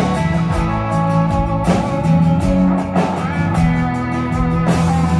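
Live band playing an instrumental bar of a country song between sung lines: guitar over a steady drum beat.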